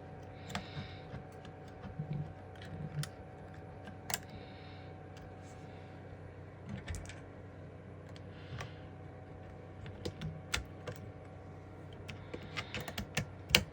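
Light, irregular clicks and taps of small parts being handled as an iPhone motherboard is fitted and connected in a test-bench frame. The clicks come closer together near the end, over a steady faint hum.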